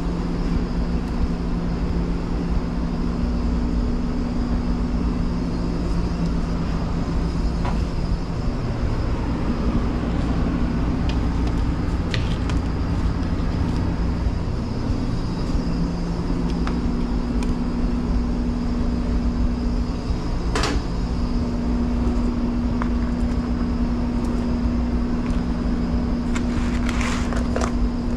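Steady mechanical drone of restaurant kitchen equipment: a low rumble with two steady hum tones. A few light clicks and clacks of utensils and takeout containers being handled sound about 12 seconds in, about 21 seconds in and near the end.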